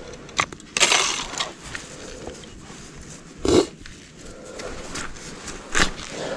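Irregular crunching on ice and snow: a few separate sharp crunches a second or two apart, with a longer scraping crunch about a second in.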